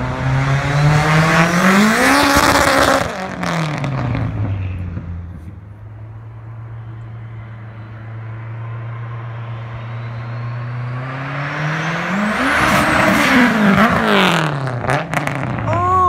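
Turbocharged Acura RSX four-cylinder with a 3-inch exhaust accelerating hard, revs climbing steeply with a high whine rising alongside, then a few sharp cracks as the revs drop about three seconds in. The exhaust then drones steadily as the car cruises away, and revs climb hard again near the end, with more cracks as it lifts off.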